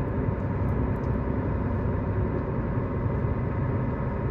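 Truck engine and tyre noise heard from inside the cab while driving, a steady low rumble.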